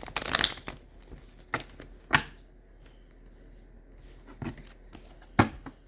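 Tarot deck being shuffled and handled: a short burst of card rustling at the start, then four separate sharp card taps.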